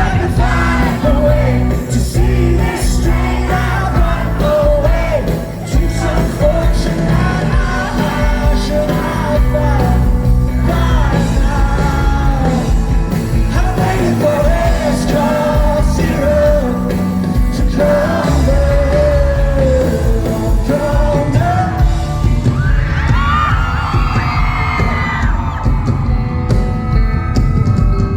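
A rock band playing live through a concert hall's sound system, with singing over the band. About 23 seconds in, shouts and cheers rise from the crowd.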